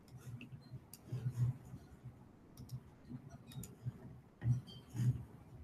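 Scattered computer clicks and keystrokes, with a few soft low thumps that are the loudest sounds, twice.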